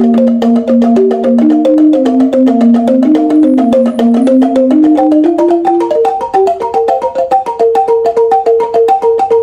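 A melody played on tuned bamboo instruments, each note sounded as a fast run of repeated wooden strikes; a lower line of notes climbs stepwise over the first half while higher notes carry the tune.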